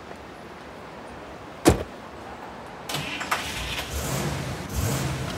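A car door slams shut about one and a half seconds in. About a second later the Dodge Challenger's engine starts and runs, growing louder toward the end.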